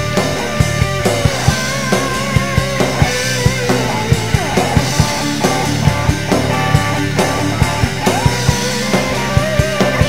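Rock band playing: a fast drum kit with close-spaced hits, electric bass and electric guitar, with a sliding, bending melodic line on top.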